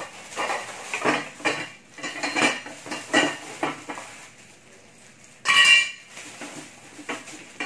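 Clear polythene wrapping crinkling and rustling as it is pulled off the moulded plastic parts of a folding table mate, with the parts knocking and clattering against each other; a louder burst of crinkling about five and a half seconds in.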